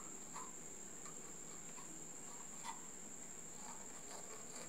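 A steady high-pitched tone, with faint scattered clicks and rustles from hands working a dynamic microphone's parts and a small tube of adhesive; the sharpest click comes a little past the middle.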